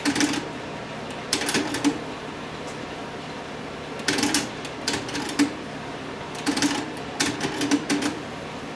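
Front-panel buttons of a Pioneer CT-07D dual cassette deck being pressed, each press followed by a short burst of clicking and clunking from the tape transport mechanism shifting modes, in clusters every second or two. No tone comes from the tape: the deck has a no-sound fault.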